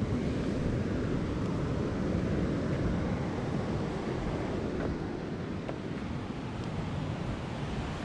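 Ocean surf breaking against the cliffs below, heard as a steady deep wash mixed with wind buffeting the microphone.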